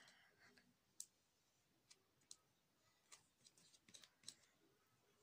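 Near silence broken by a handful of faint, irregular clicks and taps from makeup being handled while foundation is applied by hand.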